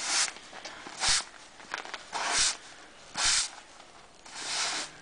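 Snow being cleared from paving: five rough scraping strokes, each about half a second long, coming roughly once a second. Some strokes start with a low knock.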